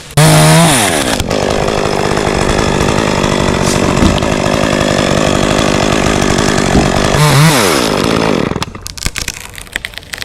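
Chainsaw running at full throttle through a cut, its pitch shifting as it comes up to speed and again about seven seconds in. It drops away about eight and a half seconds in, followed by a run of sharp clicks and cracks.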